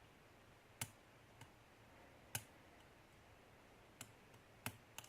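Sharp, irregular clicks of a lock pick working the pin stack of a pin-tumbler challenge lock held under light tension in a deep false set, with pins clicking as they are lifted and set; about six clicks.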